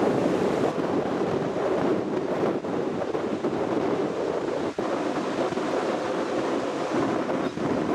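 Ocean surf breaking and washing along the shore in a steady rush, with wind on the microphone.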